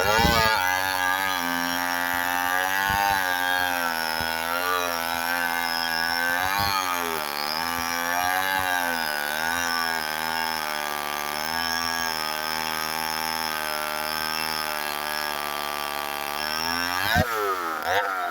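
Two-stroke chainsaw cutting into a red oak trunk at full throttle, its engine pitch dipping and recovering as the chain bogs under load. Near the end it swoops up sharply, then drops back as the cut eases off.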